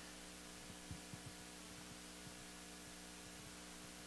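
Faint, steady electrical hum from the church sound system, holding several low pitches at once, with a few soft low knocks scattered through it.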